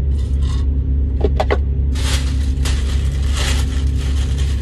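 Paper food wrapper crinkling loudly as it is unwrapped from about two seconds in, after a few short slurps through a drinking straw. Under it runs the steady low hum of an idling vehicle engine.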